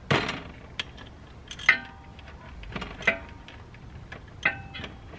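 A metal hand tool clinking on a bolt on an ATV: four sharp metallic clinks about a second and a half apart, each ringing briefly, with fainter ticks between. The bolt is spinning instead of coming loose.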